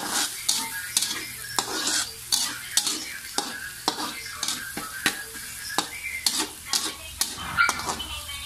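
Metal spatula scraping and knocking against a wok about twice a second while minced garlic and shallots sizzle in hot oil, being sautéed until fragrant.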